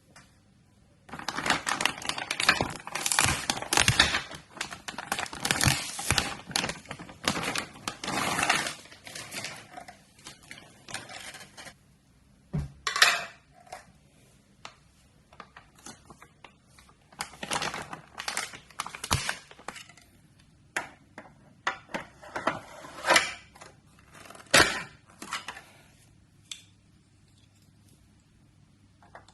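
Plastic toy parts and packaging being handled: about ten seconds of dense rattling and clattering, then scattered clicks and knocks with quiet gaps between them.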